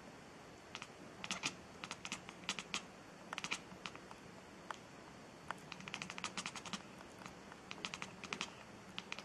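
Light, quick clicks coming in short irregular runs of several at a time, over a faint steady low hum. No meow is heard.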